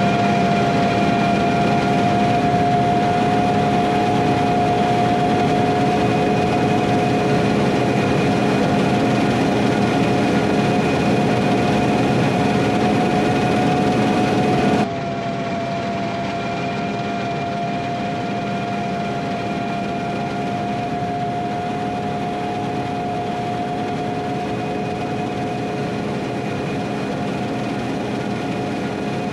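Harvest machinery working a wheat field: a steady engine drone with a constant high whine. About halfway through the sound cuts abruptly to a slightly quieter stretch of the same steady running.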